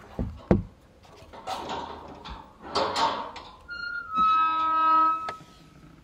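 Two low thumps and some rustling noise, then a short burst of edited-in music: one held instrument note lasting about a second, near the end.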